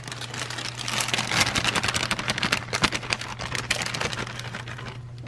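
Plastic bag crinkling and shredded iceberg lettuce rustling as it is shaken out into a glass bowl and piled up by hand, a busy crackle of quick small rustles.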